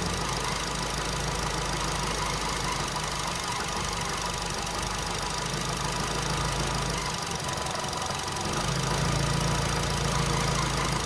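Nissan Grand Livina's petrol engine idling steadily while its mass airflow sensor is lifted partway out of the intake duct, a test of whether the sensor is behind the car's bucking and hesitation. About eight and a half seconds in the engine note deepens and gets a little louder.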